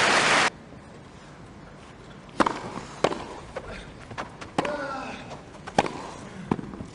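Crowd applause that cuts off abruptly about half a second in, then tennis rackets striking the ball in a rally: sharp pops roughly a second apart, with a brief voice in the middle.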